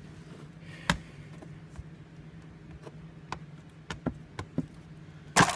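Window-tint squeegee clicking and tapping against the inside of a car windshield while film is worked down: a handful of scattered light ticks and a louder knock near the end, over a steady low hum.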